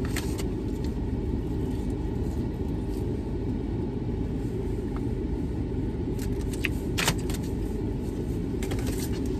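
Steady low rumble of a car idling, heard inside the cabin. A few brief crinkles of a paper food bag come through near the end.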